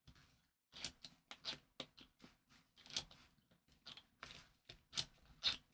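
Hand-worked central-locking actuator and its steel rod being pushed in and out and adjusted, giving a string of irregular clicks and short scrapes of metal on plastic. The loudest clicks come at about one, three, five and five and a half seconds in.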